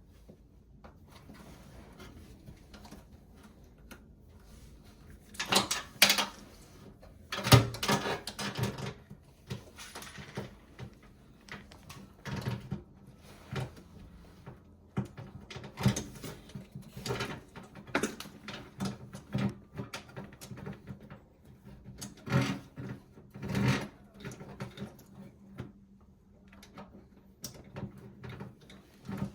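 Irregular knocks and metallic clatter of hand tools working on a washing machine's drive motor, loudest about six and seven seconds in, then a long run of smaller knocks.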